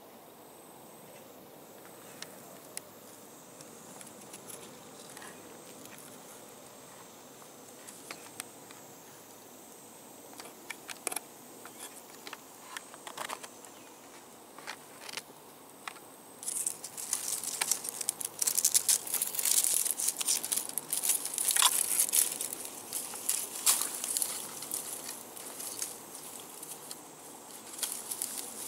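Outdoor ambience in a tree: a faint steady high insect buzz with scattered small clicks, then, a little past halfway, several seconds of loud, dense crackling rustle that fades near the end.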